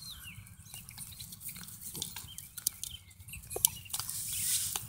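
Quiet yard sound of a small dog carrying a plastic ball in her mouth through grass: faint scattered clicks and rustles, with faint bird calls near the start and a louder rustle in the last second.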